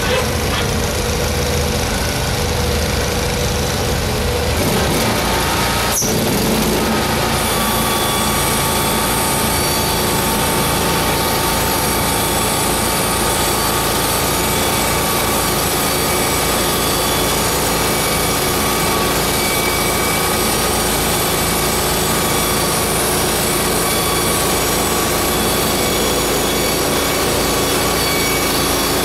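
Portable band sawmill running: the engine runs steadily at first, picks up sharply about six seconds in, then holds steady while the band blade cuts through a log.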